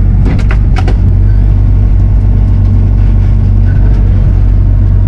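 Diesel engine of a Bobcat compact machine running steadily under work, loud and droning. There are a few sharp clanks in the first second.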